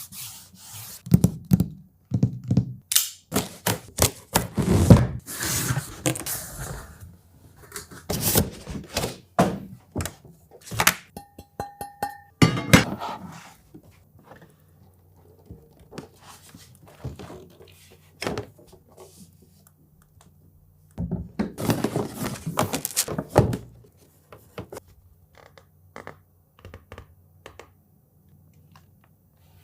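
Starlink kit box and packaging being handled and opened: repeated thunks, knocks and scraping rustles in clusters, with a brief steady beep about eleven seconds in.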